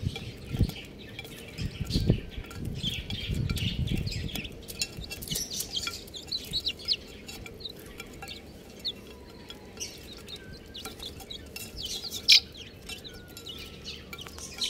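Many young chicks peeping, short high chirps overlapping throughout. Low thumps come in the first few seconds, and there is one sharp click about twelve seconds in.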